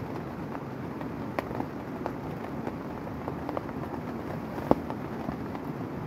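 Heavy rain drumming steadily on a tent's fabric, heard from inside the tent, with scattered sharper taps of single drops, one louder than the rest about three-quarters through.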